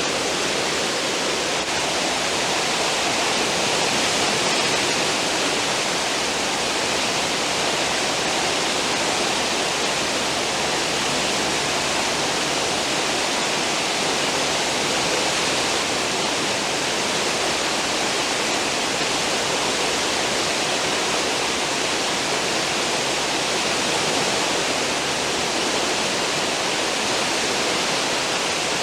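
Cruise ship's stern wake churning: a steady rushing of foaming water.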